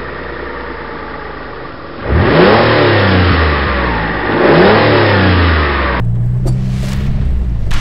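A car engine revs up and back down twice, rising then falling in pitch, over a steady engine hum. About six seconds in, the sound switches abruptly to the Land Rover Discovery 1's engine running at a low, steady pitch, with a few knocks.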